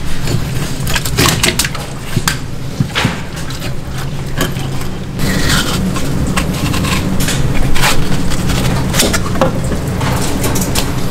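Fish knife cutting and scraping through a flatfish on a plastic cutting board: irregular sharp crunching strokes, over a steady low hum.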